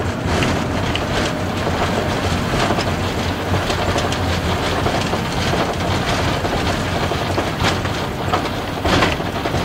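Airbus A380 cockpit during the landing rollout: a steady loud rumble from the airliner rolling down the runway, broken by irregular sharp knocks and clatter from the wheels running over the runway surface.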